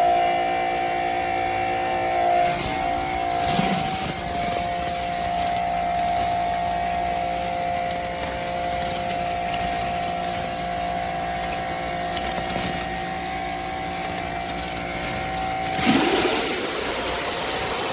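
Pressure washer running steadily with a constant whine, its spray hissing; the hiss gets louder near the end.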